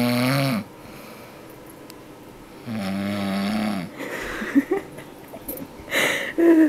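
A woman snoring: one snore ends about half a second in, and a second full snore comes about three seconds in, each a buzzing rasp lasting over a second. A few short squeaky sounds follow over the last few seconds.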